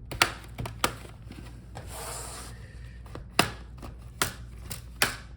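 Plastic pry tool scraping along the seam of a Dell Latitude 5420 laptop's bottom case, with several sharp clicks as the case's plastic clips snap loose. A brief scrape comes about two seconds in.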